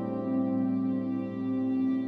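Background music with soft, long held notes.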